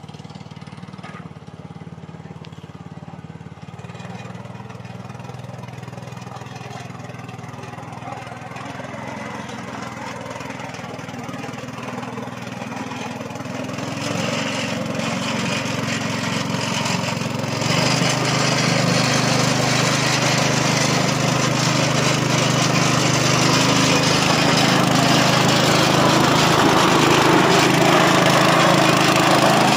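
Small single-cylinder petrol engine of a motorized wheelbarrow running steadily, growing louder, with step-ups about 14 and 18 seconds in.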